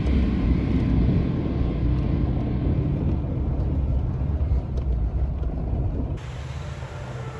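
Pickup truck driving along a snowy trail: a steady low rumble of engine and tyres. About six seconds in it changes abruptly to a quieter, steadier engine hum.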